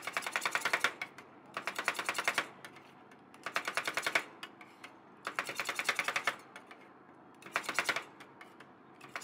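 Metal spatulas chopping rapidly on the steel cold plate of a rolled-ice-cream griddle, chopping the mix into the freezing cream base. The tapping comes in bursts of about a second at roughly ten strokes a second, five times with short pauses between, and a sixth starts at the very end.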